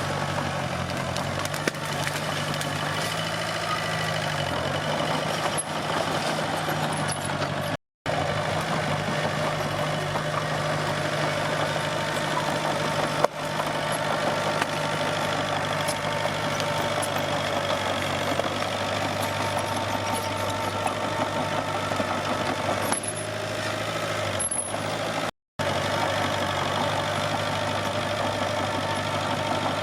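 Komatsu D21P bulldozer's diesel engine running steadily under work, its pitch shifting slightly. It is broken by a single sharp knock about 13 seconds in, and the sound cuts out for an instant twice.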